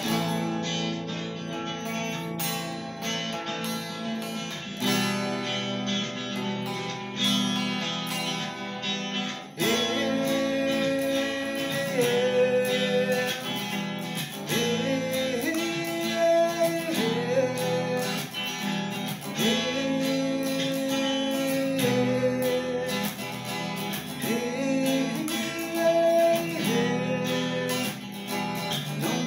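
Psychedelic rock played on an SG-style electric guitar. Chords are strummed, and from about ten seconds in a melody of long held notes that slide between pitches plays over them.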